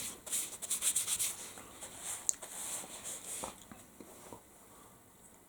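Paper tissue rubbing and rustling as hands are wiped clean, a quick series of soft scratchy swipes that dies away about three and a half seconds in.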